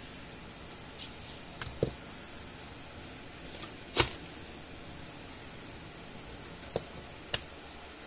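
Small tools and parts being handled and set down on a wooden workbench: a handful of short, sharp clicks and knocks, the loudest about halfway through, over a steady low hiss.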